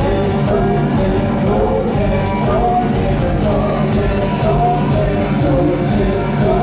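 Alt-country band playing loud live music, with a man singing the lead into a microphone.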